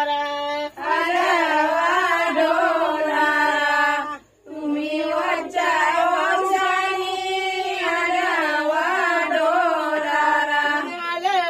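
Women singing a traditional Koli song for the goddess Gauri's arrival together, a wavering melody in long sung phrases with a short break about four seconds in.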